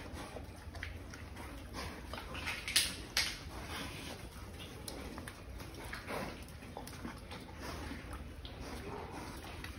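Pigs eating wet chopped plant feed off a concrete floor: irregular chewing, snuffling and grunting, with two louder sharp sounds about three seconds in.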